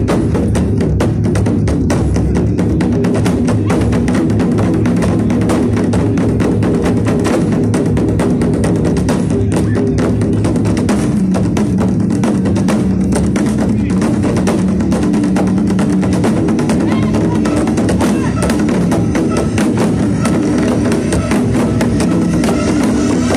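Loud live stage music driven by fast, steady drumming over a sustained low accompaniment, played through the open-air PA.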